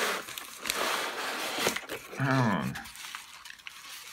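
Paper and cardboard rustling and crinkling as a padded paper mailer is slid out of a cardboard shipping box, followed about two seconds in by a short vocal sound from the person.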